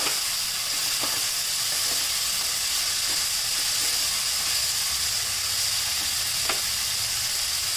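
Chopped vegetables sizzling in oil in a nonstick pan, stirred with a wooden spatula: a steady frying hiss with a couple of soft knocks of the spatula against the pan.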